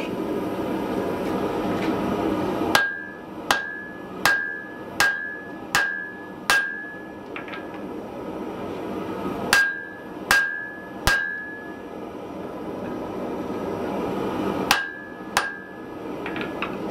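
Hand hammer blows on a glowing piece of wrought iron on the anvil: a run of six about one every three-quarters of a second, then three, then two, each with a short ring from the anvil, and a few light taps between runs. A steady rushing noise runs underneath.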